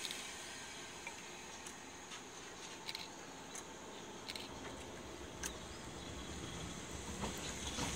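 A 189 series electric train starting to pull away from a station, quiet at first with a few sharp clicks, its low rumble building from about halfway as it gathers speed.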